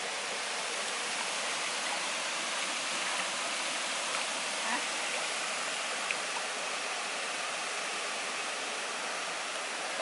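Steady rushing of a waterfall and stream, an even hiss of falling and flowing water.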